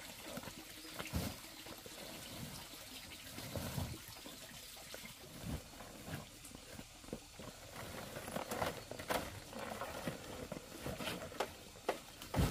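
Woven sacks of corn rustling and bumping as they are lifted and loaded onto a motorbike, with a run of short scrapes and knocks in the second half, over a steady hiss.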